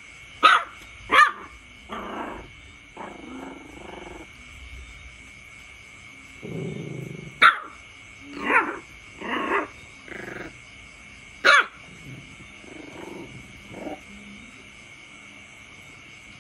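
A puppy barking at an adult dog: a few sharp, high yips that are the loudest sounds, with lower, rougher growl-like barks between them.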